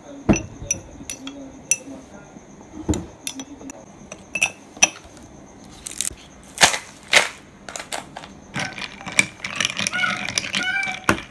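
A metal spoon clinking against a glass tumbler and nearby dishes in sharp, irregular clinks, busier over the last few seconds. A cricket chirps steadily in the background.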